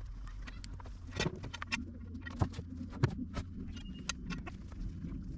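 Scattered knocks and clicks of a large log being shifted by hand on the steel bed of a portable sawmill, with a few louder thumps about a second, two and a half and three seconds in.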